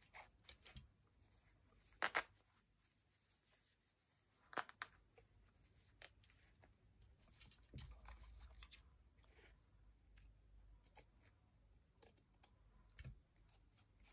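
Quiet snips of fabric scissors cutting through a strip of cloth, the sharpest a quick double snip about two seconds in and another a couple of seconds later, followed by soft rustling and small clicks of fabric scraps being handled.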